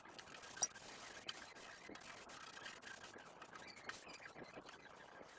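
Dishes being scrubbed by hand with a sponge: faint steady rubbing and scraping, with small clicks of crockery, the sharpest about half a second in.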